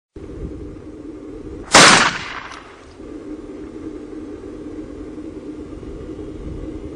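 A single shotgun shot about two seconds in, its report dying away over about half a second, over a steady low hum.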